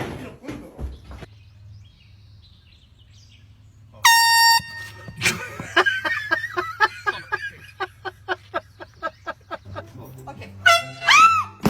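An air horn blasts once, a loud steady tone lasting about half a second, about four seconds in.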